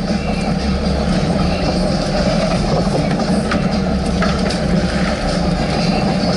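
Boat engine running steadily, a low drone.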